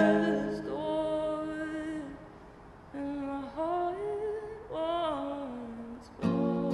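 Solo singer with a nylon-string acoustic guitar: a chord struck at the start rings on under long held sung notes that slide up and down in pitch across three phrases. The guitar is strummed again near the end.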